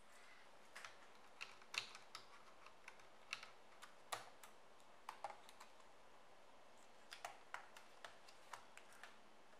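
Faint, irregular clicks and taps of a laptop being reassembled: a small screwdriver working screws in the palmrest and keyboard, and plastic parts being pressed into place.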